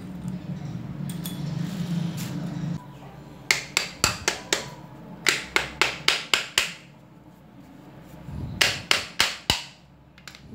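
Sharp metal taps on a motorcycle starter motor's casing, in three quick runs of five or six taps each, about four a second. A low steady hum runs under the first few seconds.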